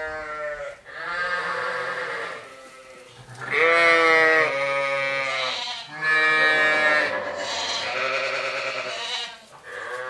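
A run of long, wavering bleating calls from livestock, about a second each, one after another with short gaps. The loudest comes about three and a half seconds in.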